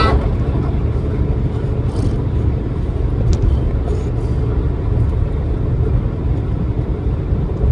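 Steady low rumble of a moving car, engine and tyre road noise, heard from inside the cabin.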